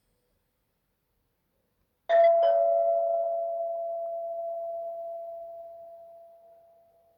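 Nokia 1200 mobile phone ringtone: a two-note doorbell-like chime, a higher note and then a lower one about a quarter second later, starting about two seconds in and ringing on as it slowly fades away.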